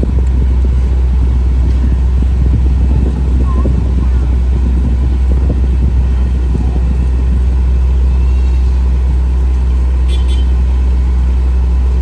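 Steady low engine rumble of a motor vehicle, running evenly without revving.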